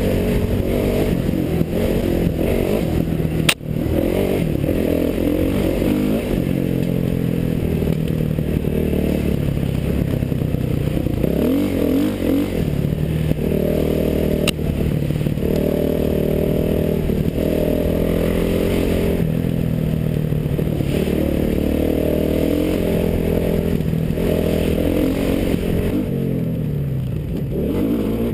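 Dirt bike engine running hard under the rider, its pitch rising and falling as the throttle opens and closes through the gears, heard from a helmet-mounted camera with wind on the microphone. There are two sharp clicks, one a few seconds in and another about halfway.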